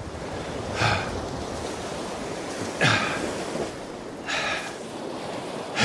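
Surf breaking on the beach as a steady wash, with a man breathing hard in about four short, gasping breaths as he fights a fish on a surf rod.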